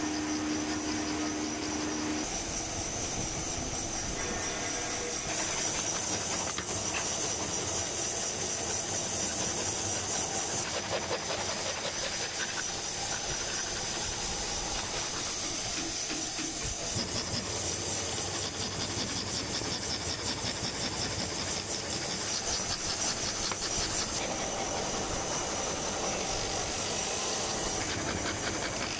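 Scroll saw running, its thin reciprocating blade cutting plywood: a steady rasping hiss with a fast, even chatter from the blade strokes.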